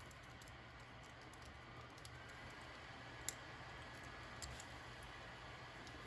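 Faint scattered clicks and taps of small RC parts and hand tools being handled, with one sharper click about three seconds in and another a second later, over a low steady hum.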